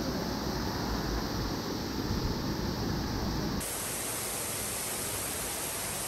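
Shallow mountain stream water running over rocks, a steady hiss, with low rumbling from wading through the shallows. About three and a half seconds in it switches abruptly to a brighter, even rush of water with the rumble gone.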